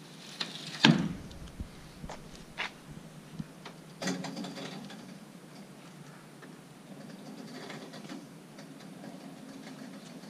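Rear ramp door of an enclosed cargo trailer being lifted and swung up shut. A loud knock comes about a second in, then scattered clicks and a metallic clatter around four seconds in, then faint rattling as the ramp rises.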